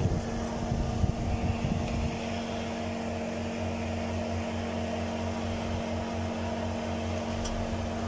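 A steady machine hum with several steady low tones, even in level throughout, and a small click near the end.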